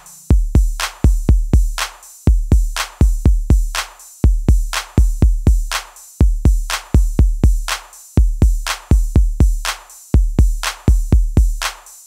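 Background music: an electronic drum-machine beat of deep bass kicks with sharp clicks, repeating in an even pattern.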